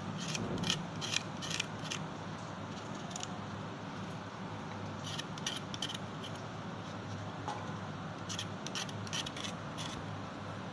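A knife blade scraping and peeling the skin off a taro root (arvi), in short rasping strokes of about two to three a second. The strokes come in three runs: in the first two seconds, briefly around five seconds in, and again around eight to nine seconds in.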